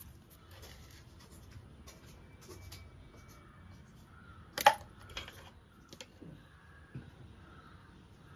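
Kitchen prep handling sounds: light taps and rubbing, with one sharp clink of a utensil or dish about four and a half seconds in, followed by a few softer knocks.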